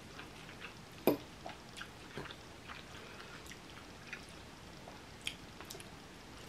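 Quiet wet chewing of a mouthful of pasta salad, with scattered small clicks of a metal fork tapping and scraping a ceramic bowl, the sharpest about a second in.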